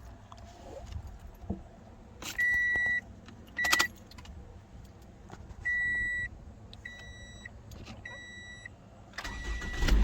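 A Toyota RAV4's dashboard warning chime beeps about five times, each a short steady high tone, with a few clicks among them; near the end the four-cylinder engine cranks and starts.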